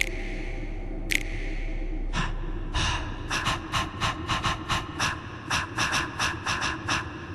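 Instrumental break of a pop song: a sustained synth tone under short, sharp breathy gasps, a few spaced about a second apart at first, then coming quickly at about three a second.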